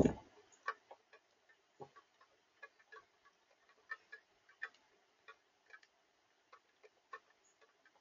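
Northern cardinal on a platform feeder of cracked corn and seed, its bill picking at the feed in light, irregular clicks and taps, about two or three a second. A louder bump comes right at the start.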